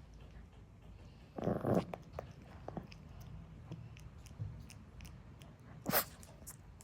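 Pomeranian making small clicking, chewing-like mouth sounds, with a short low grumble about a second and a half in and one sharp, loud sound near the end.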